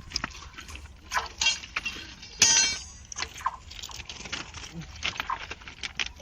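Irregular metallic clinks and knocks of hand tools striking steel at a thermite rail weld, with one louder ringing strike about two and a half seconds in.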